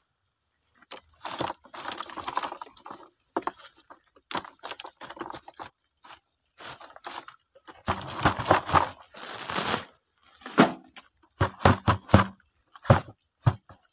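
Lumps of charcoal being shifted and packed by hand in a plastic bucket: irregular clattering and crunching, with a run of sharper clicks near the end.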